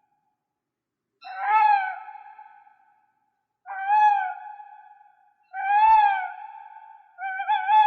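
A series of four drawn-out animal calls about two seconds apart, each rising and falling in pitch and then trailing off on a level note; the last one wavers.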